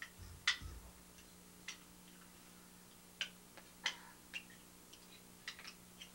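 Irregular sharp clicks and knocks of small plastic Lego Duplo pieces being handled and pushed together, about eight in six seconds, the loudest with a soft thud about half a second in, over a steady low electrical hum.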